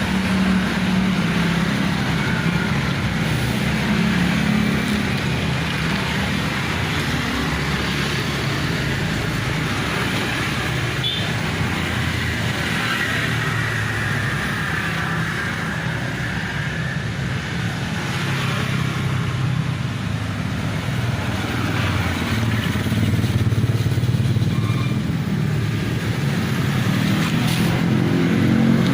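Steady road traffic, motor vehicle engines running and passing continuously, louder toward the end.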